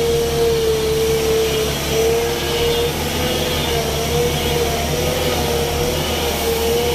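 Loaded goods truck driving uphill, its engine running steadily under load with a prominent whine that wavers slightly in pitch.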